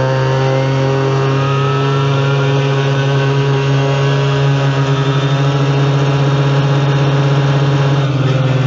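Adly 50cc quad's engine at full throttle in first gear, held at high revs for a top-speed run, its pitch creeping slightly higher.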